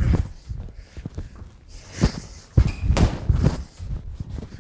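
Boxing gloves thudding into a TKO heavy bag: a hit just at the start, then a quick run of punches from about two to three and a half seconds in, with footwork on a concrete floor.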